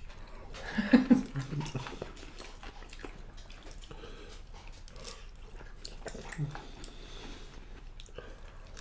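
Close-up eating sounds: chewing, with light clicks of chopsticks against bowls. A short, low voice-like sound comes about a second in.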